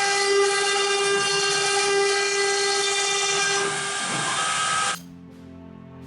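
CNC router spindle running at speed while engraving wood, a steady loud whine over cutting noise. It stops about four seconds in, and a second later gives way abruptly to soft music.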